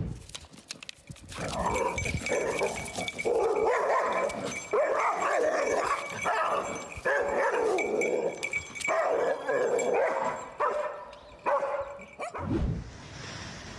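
A dog barking and yipping in a long run of loud outbursts, which stop a little before the end.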